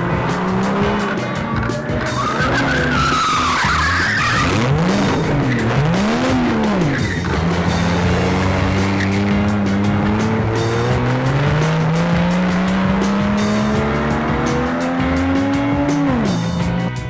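A race car's engine revving hard: two quick rev-ups and drops, then a long climb in pitch under full throttle that falls off sharply near the end. A tire squeal comes a few seconds in.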